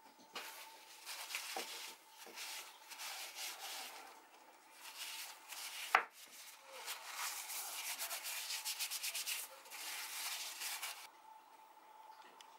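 Paper towel rubbing over a wet, freshly finished oak spoon, wiping the finish into the wood: scratchy rubbing strokes, quick and close together for a few seconds past the middle, with one sharp knock about halfway. The rubbing stops about a second before the end.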